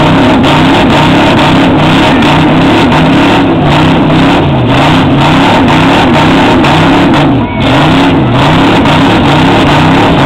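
GMC pickup truck's engine running hard under load as it pulls a weighted sled, very loud, its pitch rising and falling over and over about every two-thirds of a second.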